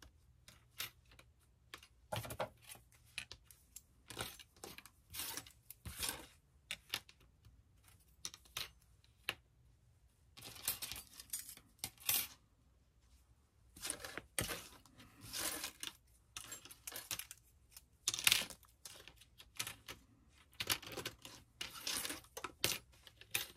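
Thin metal craft cutting dies clicking and clinking against one another as they are handled and sorted into piles, in irregular runs of short sharp clicks, with light rustling.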